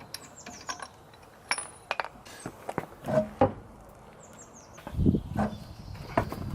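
Scattered light clicks and knocks, with a few heavier thuds about five seconds in, and faint bird chirps twice.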